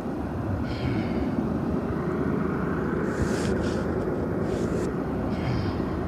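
Steady low rumble of distant engines. A finger brushes the microphone twice, with brief scrapes about three and four and a half seconds in.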